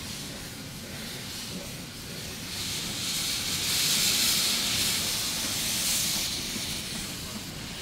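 Steam hissing from a 15-inch gauge steam locomotive, swelling up a couple of seconds in, loudest in the middle and fading near the end, over a low rumble.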